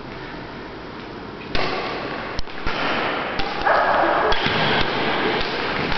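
Echoing sports-hall noise during a badminton rally, with sharp clicks of rackets striking the shuttlecock about once a second. The level jumps suddenly about a second and a half in.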